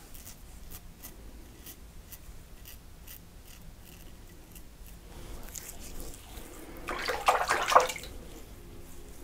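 Safety razor scraping stubble in short strokes, about two or three a second. Near the end comes a louder burst of noise about a second long.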